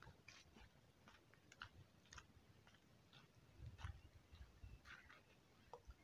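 Faint, irregular footsteps crunching and rustling on a dirt path scattered with dry leaves and twigs: light clicks and crackles, with a few soft thumps a little past the middle.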